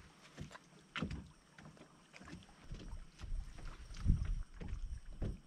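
Wind buffeting the microphone in gusts, a low rumble that swells and fades and grows stronger after about two seconds, with a few faint ticks and taps.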